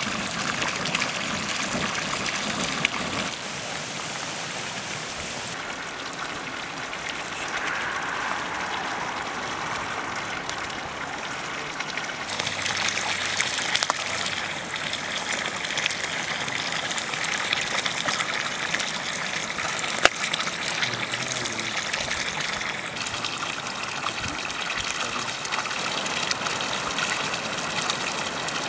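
Water running steadily from a pipe outlet, a continuous gushing trickle whose tone shifts at several points. A single sharp click sounds about twenty seconds in.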